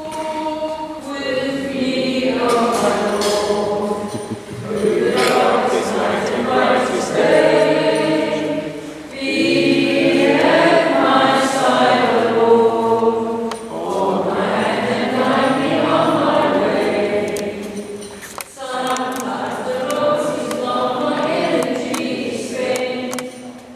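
Recorded gospel song played back: a choir singing in slow phrases of about four seconds each, with brief breaths between them.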